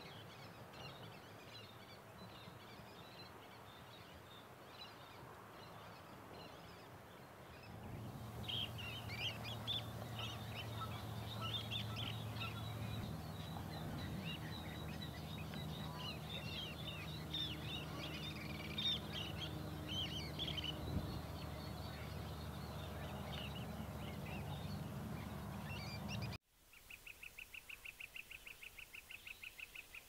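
Faint bird chirps at first. About eight seconds in, the sound grows louder with many short high calls from a flock of small sandpipers, over a low steady hum. After an abrupt cut near the end, a fast trill of evenly spaced notes follows, about seven a second.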